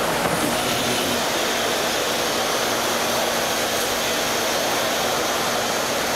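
Industrial machinery running steadily: a loud, even rushing noise with a constant low hum underneath.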